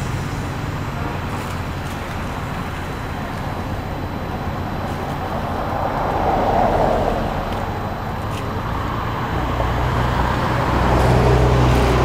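Steady road traffic noise, swelling briefly about halfway through, with a low engine rumble coming in near the end.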